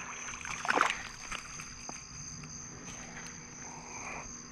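Insect chorus trilling steadily at a high pitch, with a short burst of rustling and knocks about a second in.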